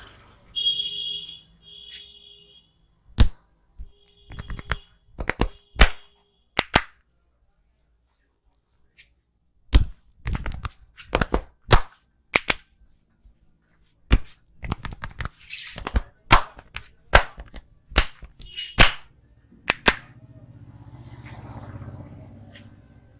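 Barber's percussive head massage: a run of sharp, irregular slaps and cracks from hands striking and clapping. There is a pause of about three seconds in the middle before the strikes come quickly again.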